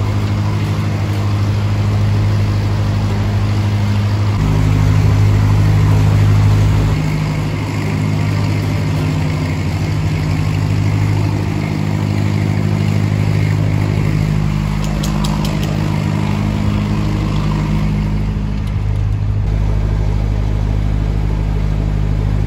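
Narrowboat diesel engine running steadily under way, a loud, steady low note.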